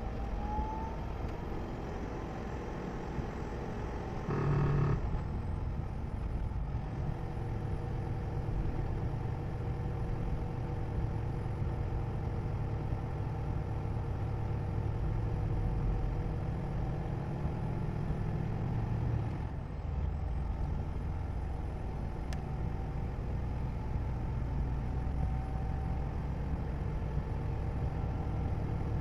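Steady road and engine noise of a vehicle driving, a continuous low rumble, with a short, louder pitched sound about four seconds in.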